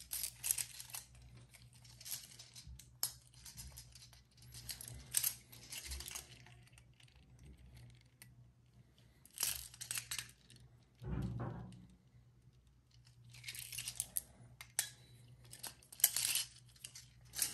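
Faint, intermittent rustling and light clicks of hands turning over two hard-plastic deep-diving trolling lures with clear plastic lips and treble hooks.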